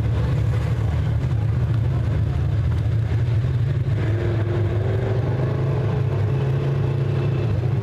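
Several open-wheel dirt-track modifieds' V8 engines running steadily on the oval, a continuous low drone; about halfway in, one engine note stands out and creeps slowly upward in pitch.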